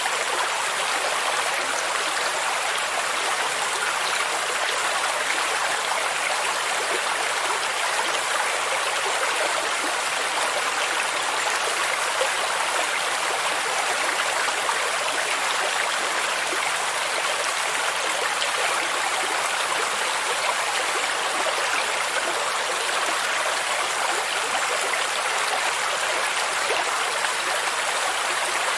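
Stream of water flowing and splashing steadily, a continuous even rush with no breaks.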